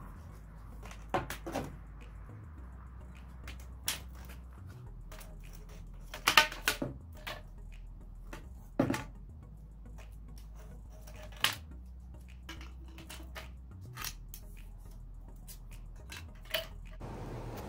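PVC pipes and fittings knocking and clattering as a pipe stand is pulled apart and the pieces are laid down on concrete. There are about ten sharp knocks at irregular intervals, the loudest a quick cluster about six seconds in.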